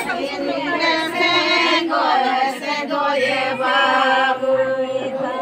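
A group of women singing a Ho wedding song together.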